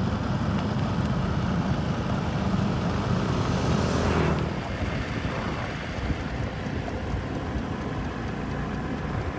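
Motor vehicle running steadily, with a louder rushing swell that builds to a peak about four seconds in and then drops away, like a vehicle passing close by.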